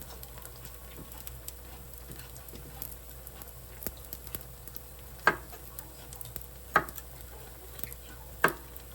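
Kitchen cooking sounds: small clicks of a utensil working in a pan over a faint sizzle, with three sharp knocks about a second and a half apart near the end.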